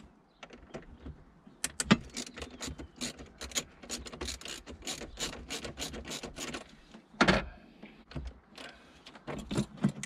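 Ratchet wrench clicking rapidly, about four or five clicks a second, as it undoes the nut on the car battery's negative terminal clamp. One louder knock comes about seven seconds in, and a few more clicks follow near the end.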